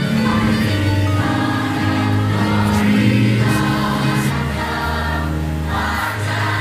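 A choir singing long held chords that change every second or so.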